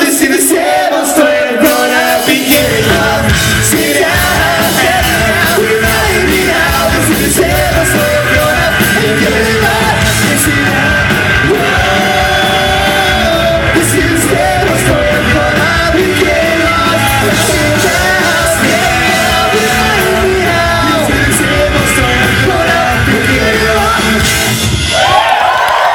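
Ska-punk band playing live, with shouted and sung vocals over loud rock music. After a sparse start without bass, the full band comes in about two and a half seconds in.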